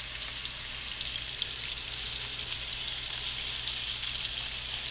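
Raw meatballs sizzling in hot avocado oil and butter in a large skillet over medium-high heat as they sear and brown: a steady hiss flecked with fine crackles.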